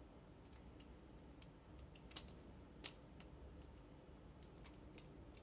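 Faint, scattered clicks and ticks of plastic LEGO pieces being handled and pressed together, about a dozen irregular snaps, the sharpest about two and three seconds in.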